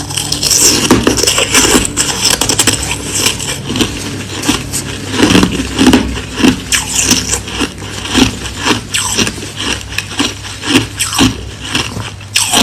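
Hard crushed ice being chewed, crunching between the teeth close to the microphone in a continuous run of crisp crunches and heavier bites.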